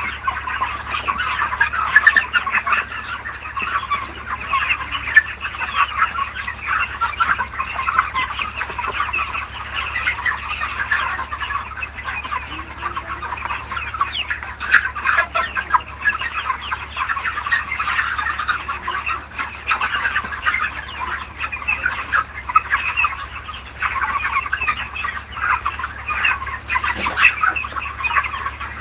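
A large flock of chickens clucking and chirping continuously, many birds calling over one another, above a steady low hum.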